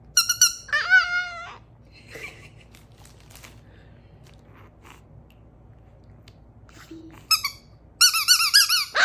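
Rubber squeaky toy balls squeezed by hand: a high squeak and a lower squeak at the start, then a few short squeaks and a run of quick ones near the end.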